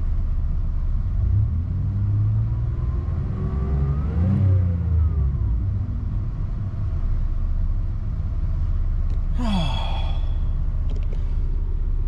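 A 2004 Chevrolet S10 Blazer Xtreme's 4.3-litre V6, heard from inside the cab, pulling away from a stop. The engine note rises in pitch, drops back about four seconds in, then settles into a steady low drone.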